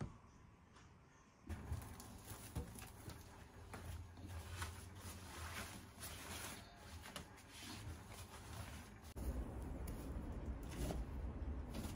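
Damp laundry rustling and brushing as it is pulled from a front-loading washing machine drum into a wicker basket, beginning about a second and a half in. Near the end a steadier low background rumble takes over.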